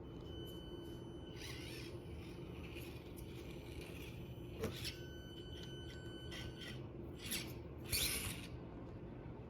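Axial SCX24 micro crawler's small electric motor and gearbox whining in on-and-off spurts as it crawls over the course, with a sharp click about halfway through and short scrapes near the end.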